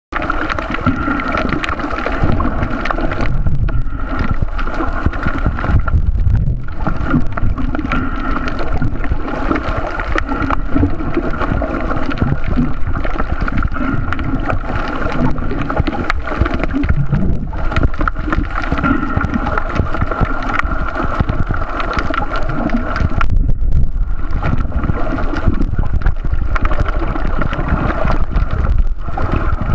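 Underwater noise as picked up by a camera held underwater: a steady, muffled rush and rumble with a constant hum and fine crackling.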